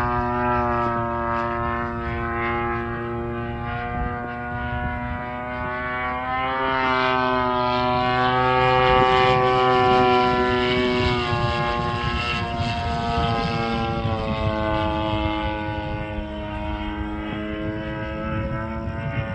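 DLE-55 single-cylinder two-stroke petrol engine of an 81-inch radio-controlled FW-190 warbird in flight, a steady propeller drone. Its pitch rises and falls a few times as the plane flies its circuit, and it is loudest about halfway through.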